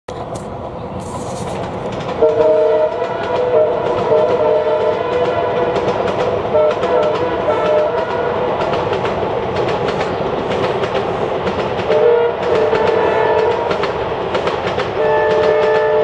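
WDG-3A diesel-electric locomotive's two-tone horn sounding a string of short honks from about two seconds in, more honks a little past the middle, and a long unbroken blast near the end. Under it runs the noise of the train passing at speed, with quick clicking of wheels over rail joints.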